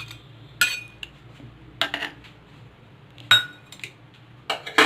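A metal utensil clinking against a cooking pot as grated ginger and raw turmeric are scraped into the water: four or five sharp clinks about a second apart, some with a brief ring.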